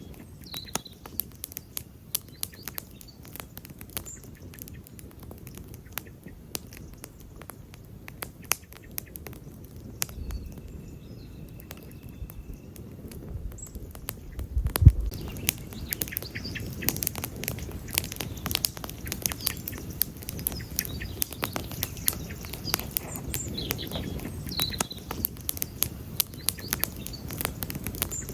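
Wood campfire crackling, with many sharp snaps and pops. A low thump comes about halfway through, and after it the fire's low rushing grows louder. A few faint bird chirps sound now and then.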